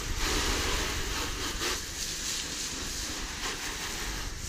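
Steady hiss of water from a garden hose nozzle spraying onto a car's wet side panels and the driveway, rinsing the car.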